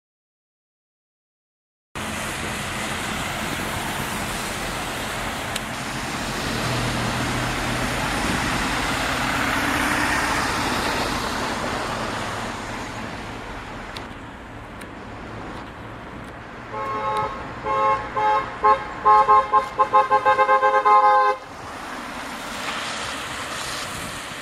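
After two seconds of silence, a car passes on wet asphalt with tyre hiss that swells and fades. About seventeen seconds in, a two-tone car horn sounds in a quick series of short toots for about four seconds.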